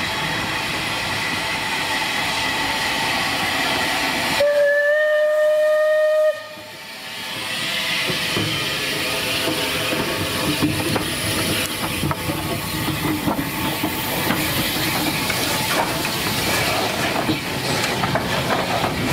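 Bulleid Battle of Britain class steam locomotive 34081 '92 Squadron' running with steady steam and exhaust noise. About four and a half seconds in it gives one whistle blast lasting nearly two seconds, which cuts off sharply. It then passes close by with steam hiss and the clatter of its wheels and coupling rods.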